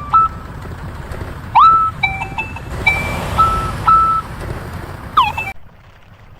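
Cartoon vehicle horn sound effects: a string of short honks and beeps at changing pitches, with a rising swoop about one and a half seconds in and a falling swoop near the end, over a low rumble that cuts off suddenly about five and a half seconds in.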